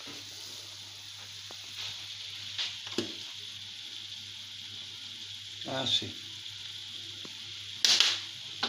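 Salt cod and chopped onion frying in a non-stick pan: a steady sizzle over a low steady hum, with a few short knocks and a louder brief clatter near the end.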